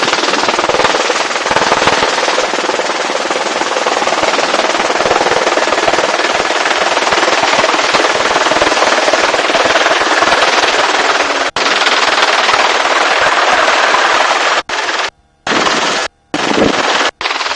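Helicopter rotor and engine noise, loud and steady with a dense, rapid chop. Near the end it cuts in and out abruptly several times.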